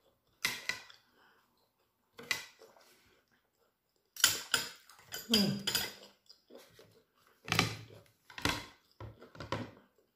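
Metal fork and knife clinking and scraping against ceramic plates in a string of short, separate strokes with gaps between them.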